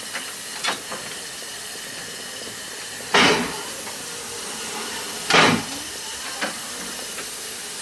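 Stationary narrow-gauge steam tank locomotive, Vale of Rheidol No. 8, hissing steam steadily while standing in steam. Two louder short bursts come about three and five seconds in, with fainter ones near the start and end.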